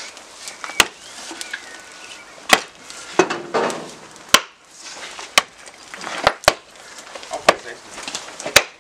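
Wooden maul striking a hot bloomery iron bloom in a charcoal fire: about nine sharp knocks at irregular intervals, roughly a second apart, as the bloom is refined.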